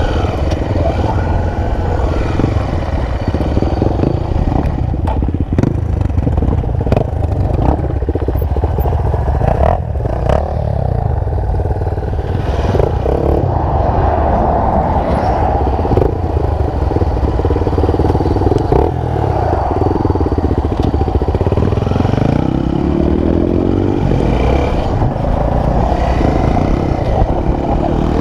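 Single-cylinder four-stroke enduro motorcycle engine running while riding a dirt trail, with the bike clattering over rough ground. The revs climb in one rising sweep about three-quarters of the way through.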